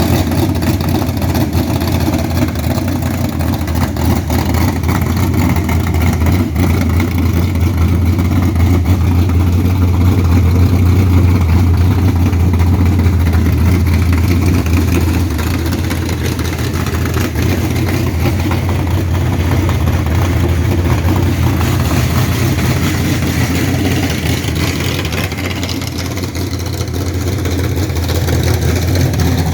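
1969 Camaro's 355 small-block Chevy V8, with a Comp Cams Mutha Thumpr cam, Holley carb and stainless full-length headers, idling steadily through the exhaust.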